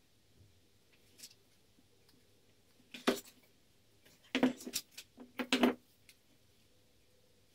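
Several short bursts of crinkling and clicking as hands handle the plastic grafting wrap on a green grapevine graft. The loudest comes about three seconds in, and a cluster follows between about four and a half and six seconds.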